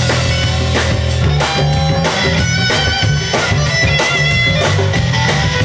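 Live rock band playing an instrumental passage: electric guitar lead notes over bass guitar and drums keeping a steady beat.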